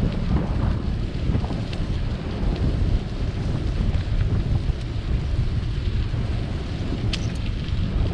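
Wind buffeting the microphone of a camera riding on a moving bicycle: a steady low gusting rumble, with a few faint clicks, one near the end.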